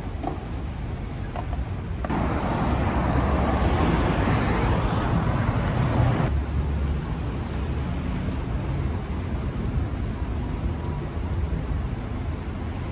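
Urban road traffic: a steady low rumble of passing vehicles, which grows louder and fuller for about four seconds from about two seconds in, then drops back.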